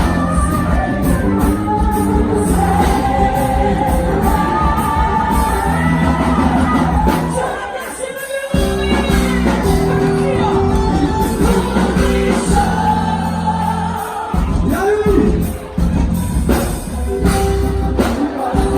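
Music for a quadrilha junina dance: a singer over a loud band with heavy bass, the bass dropping out for a moment about eight seconds in before the full band comes back.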